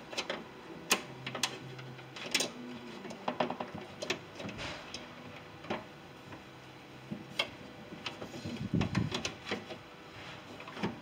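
Irregular clicks, taps and light knocks of latch cables and rods being worked by hand inside the steel rear cargo door of a Ford E350 van, with a short dull rumble about two thirds of the way through.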